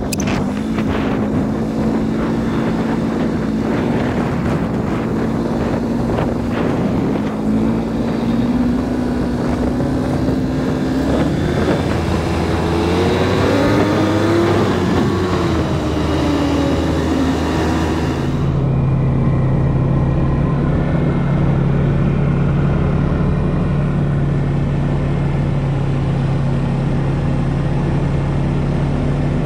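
Snowmobile engine running under way, its pitch rising and falling around the middle as the speed changes. About two-thirds of the way through it changes to a steady low drone.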